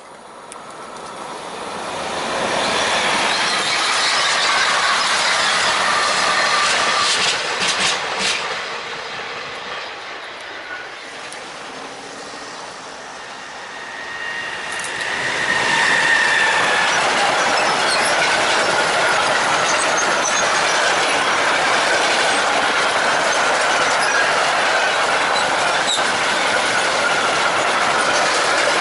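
An electric-hauled freight train of covered wagons rolling past close by: steady wheel and rail noise with a high squealing tone from the wheels. The noise swells early, dips, then builds again about halfway through as the train arrives and holds as the wagons go by.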